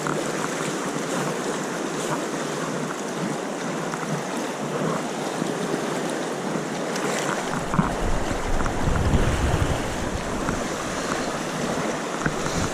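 River water rushing steadily. Wind rumbles on the microphone from about halfway through.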